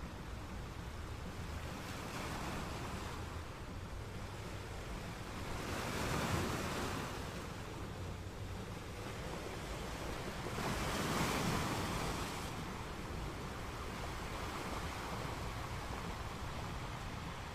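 Sea waves washing, with wind buffeting the microphone; the noise swells louder twice, about six and eleven seconds in.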